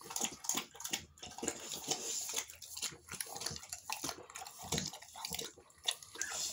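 Three-week-old American bully puppies lapping and smacking at a food bowl, an irregular run of small clicks and slurps.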